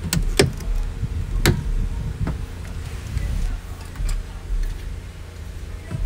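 A few sharp clicks and taps from hands handling the plastic speaker mount and wiring in a car door, over a steady low rumble.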